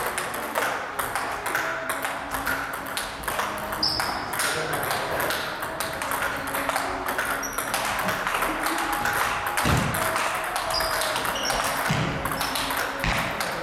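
Table tennis rally: the ball clicks off the bats and the table over and over in a quick, irregular patter of sharp knocks.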